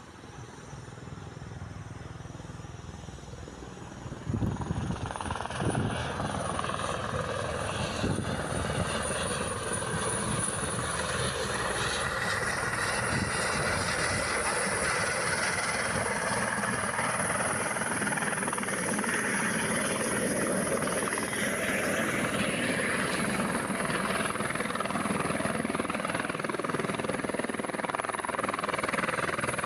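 Airbus H130 helicopter's turbine and rotor running, getting much louder about four seconds in and then holding steady, with a high turbine whine slowly rising in pitch.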